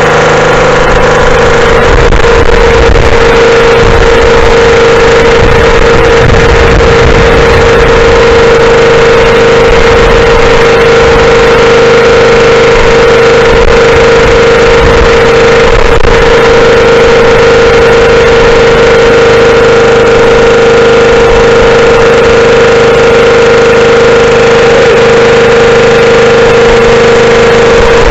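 The 5 hp single-cylinder engine of a home-built pressure washer running steadily at a constant speed.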